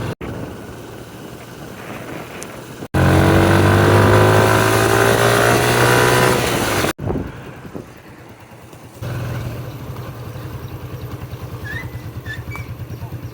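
Vehicle engine running, its pitch rising steadily as it speeds up in the loudest stretch, then a steady pulsing engine note after a cut. A few short high chirps come near the end.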